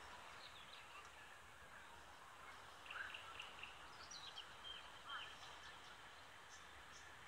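Faint bird calls: a scattering of short chirps and whistles, busiest in the middle few seconds, over a soft steady background hiss.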